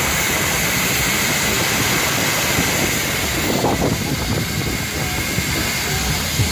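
Wind rushing and buffeting over the microphone of a rider on a spinning Hurrican swing-arm fairground ride: a steady loud rush with an uneven low rumble beneath it.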